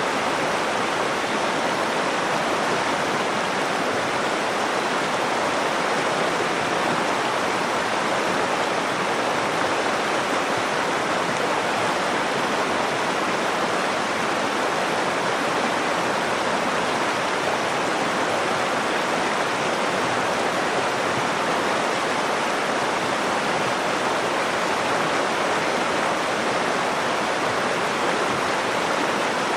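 River water rushing over a shallow stretch, a steady, even flow.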